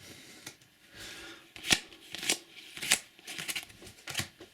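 Topps Cricket Attax trading cards being handled and flicked through by hand: a run of irregular short snaps and slides of card on card.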